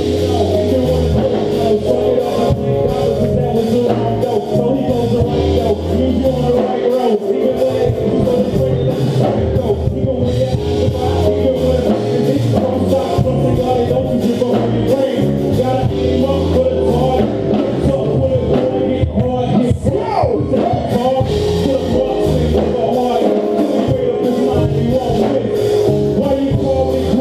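Live worship music played by a band, with a steady drum beat, a throbbing bass line and held keyboard or organ chords, and singing at times.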